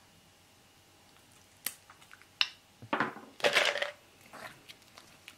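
Two sharp clicks of dog nail clippers, the second with a short metallic ring, then a loud burst of crinkly, crunchy rummaging as a hand digs into a plastic tub, and a few faint ticks near the end.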